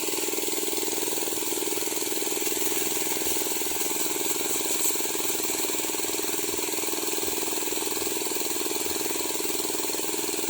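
Engine-driven Sanchin power sprayer running steadily at a constant speed, with a steady high hiss over the engine note.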